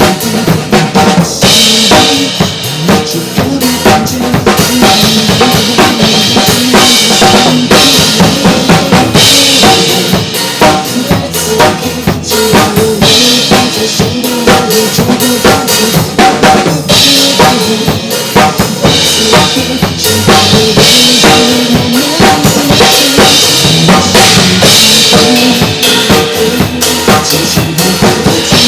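Drum kit played along to a Mandopop backing track: kick drum, snare with rimshots, and cymbals over the recorded song, at a steady groove.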